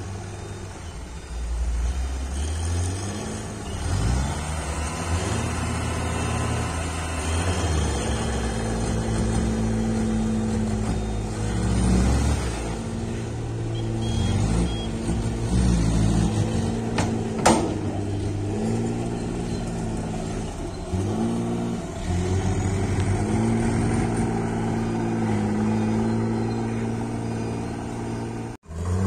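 Dump truck's diesel engine revving up and down repeatedly while it drives the hydraulic hoist that tips the bed and dumps its load of soil. A single sharp knock about two-thirds of the way through.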